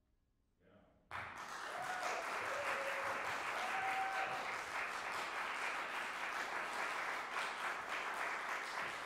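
A second of near silence after the final note, then audience applause breaks out about a second in and carries on steadily.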